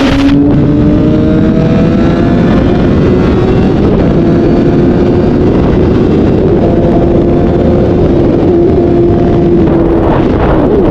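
Honda CBR1000RR's inline-four engine running at high revs under way, its pitch climbing slowly over the first few seconds, then holding steady and dipping slightly near the end.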